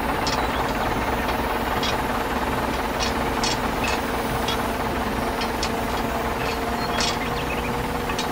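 Tractor engine idling steadily, with scattered light clicks and knocks over it.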